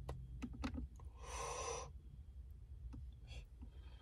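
A few faint clicks, then a man's breath lasting just under a second, and a shorter breath near the end, over a low steady hum.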